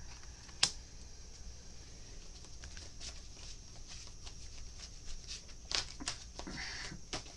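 Tarot cards being handled and laid out on a table: scattered light taps and rustles of card on card, with a sharper tap about half a second in and a flurry of taps and a short rustle near the end.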